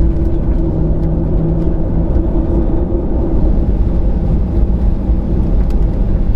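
Cabin noise of a Boeing 737-800 taxiing, its CFM56-7B turbofans running at low thrust: a steady low rumble with a hum that fades out about five seconds in.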